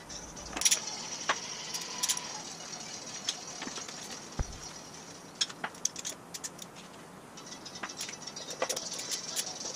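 Scattered metallic clicks and clinks of a socket ratchet and wrench working loose the oil pan bolts on a Ford flathead V8, irregular and sharp, some in quick runs.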